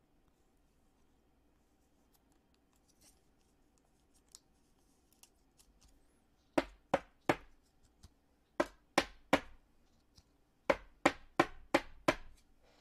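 Faint rustling of a sleeved mini trading card going into a rigid plastic top loader, then the top loader tapped sharply about eleven times in three quick runs to work the small card down into it.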